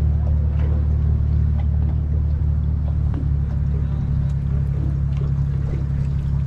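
Boat's outboard motor running, a steady low drone that changes pitch slightly about three seconds in.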